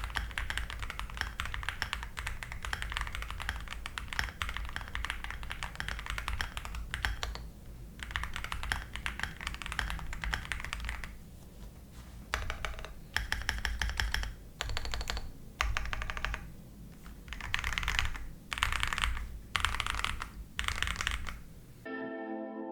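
Typing on a Sisyphus65 gasket-mount keyboard with an aluminium case, FR4 plate and pre-lubed Diamond Avalon linear switches. Fast, continuous typing for about eleven seconds, then short bursts of rapid key presses with brief pauses between them. Soft ambient music comes in just before the end.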